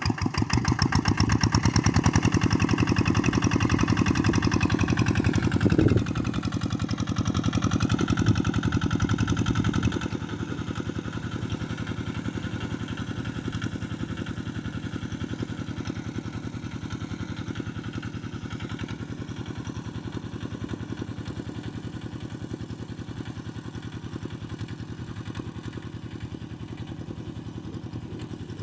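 Small tractor engine running steadily as it pulls a plough. Its note dips and recovers about six to eight seconds in, and it becomes quieter about ten seconds in.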